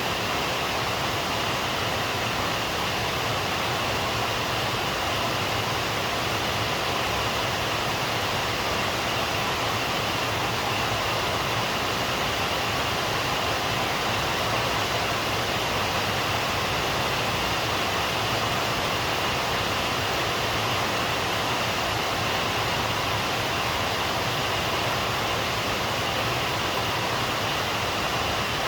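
Steady rain falling, an even hiss with no thunder or separate drops standing out.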